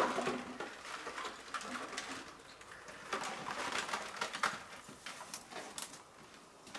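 A bundle of empty plastic bottles rattling and crinkling, with scuffs and clicks from climbing over rock. The knocks and crackles come at irregular moments.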